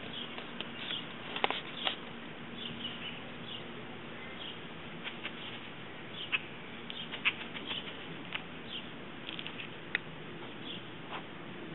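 Siberian Husky puppy chewing and tearing at grass: scattered, irregular small clicks and crackles.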